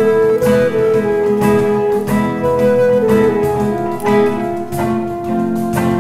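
Instrumental passage of a slow Turkish song: a flute plays a melody of long held notes over a strummed nylon-string classical guitar, with cajon strokes keeping the beat.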